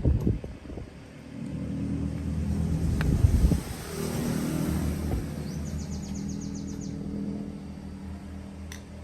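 A low engine rumble swells over a couple of seconds, then slowly eases off. Knocks come near the start and about three seconds in, and a bird chirps rapidly near the middle.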